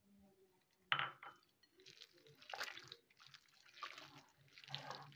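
Hand kneading and squeezing raw chicken with egg and spice marinade in a glass bowl: irregular wet squelching, after a short sharp sound about a second in as the egg goes in.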